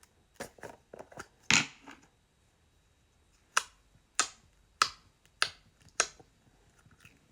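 Slime being squished and poked by hand, making sharp clicking pops: a few small clicks at first, then five evenly spaced pops a little over half a second apart.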